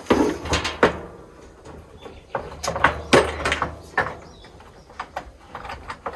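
A series of sharp knocks and clunks as tools are handled and spanners are taken out to tighten the die grinder's collet.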